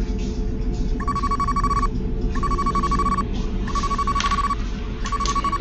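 An electronic ringing tone, a trilling note in bursts just under a second long that repeat four times, starting about a second in, over a steady low hum.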